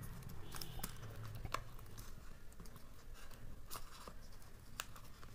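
Hands handling an action camera's box and packaging: light rustling with scattered small clicks and taps.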